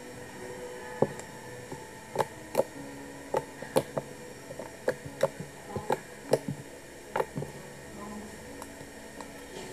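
Thick pale slime being squeezed and pressed by hand, giving a run of short, sharp pops and clicks as air is pressed out, roughly two a second, which die away near the end.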